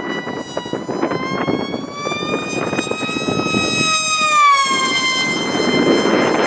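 Mini Rite Wing RC flying wing's motor and propeller whining, its pitch rising gently and holding, then falling about four seconds in before steadying again, with wind rushing on the microphone.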